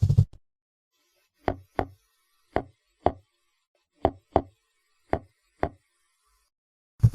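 Seahorse clicks: eight short, sharp clicks that come in four pairs, roughly one pair a second, with silence between.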